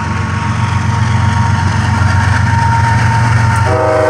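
CSX freight diesel locomotives passing close, a steady low engine rumble that gets slightly louder as they come by. Near the end the locomotive's multi-chime horn starts sounding a held chord.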